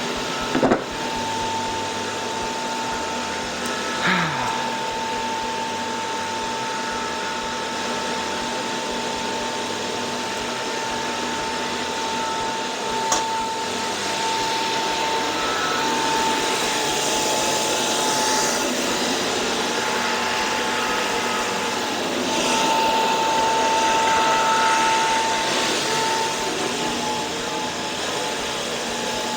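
A small electric motor running steadily, with a faint steady whine, and a few light knocks.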